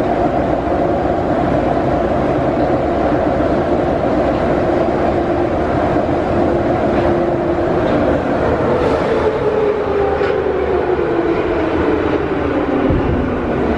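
Interior running noise of a Soviet-type 81-717/714 metro train: rumble with the traction motors' whine. About two-thirds of the way through, the whine starts falling steadily in pitch as the train slows for a station.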